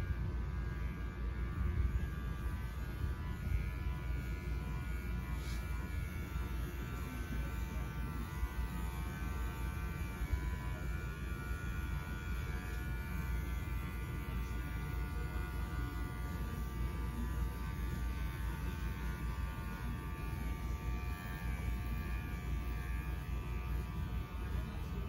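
Electric dog grooming clippers running steadily while shaving a schnauzer puppy's coat short.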